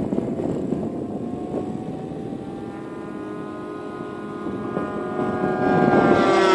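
Radio-controlled model Spitfire and Hurricane warplanes flying by, their engines giving a steady propeller drone that grows louder and then drops in pitch as they pass close near the end.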